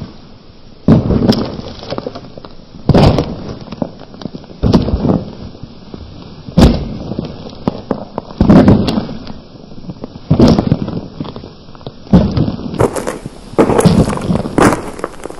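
A run of loud, sudden booms and cracks, one about every one to two seconds, each dying away in a low rumble.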